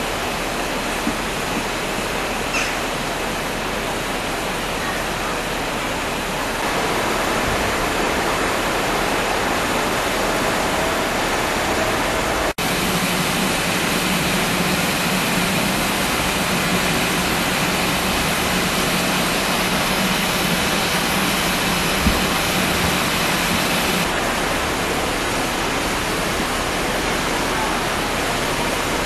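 BR Standard Class 4MT 2-6-0 steam locomotive standing with steam escaping in a steady hiss. The hiss cuts out for an instant about twelve seconds in, then carries on with a low steady hum beneath it.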